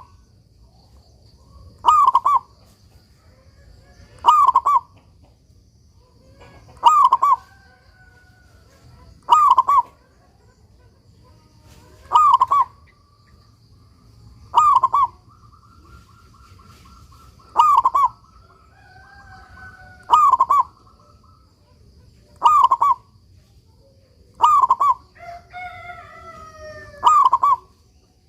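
Zebra dove (perkutut) cooing over and over: a short, loud phrase about every two and a half seconds. Fainter, longer calls from other birds come in between.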